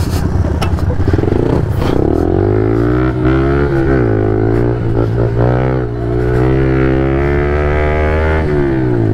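Pit bike engine revving hard under acceleration during a race, ridden flat out on a dirt track. It starts with clatter, then the pitch climbs, dips briefly a couple of times and holds high and steady.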